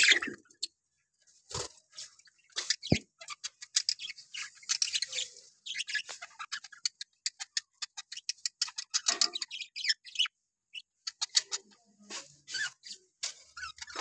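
A flock of budgerigars chirping and chattering in rapid, short, high calls that come in clusters. A single sharp knock sounds about three seconds in.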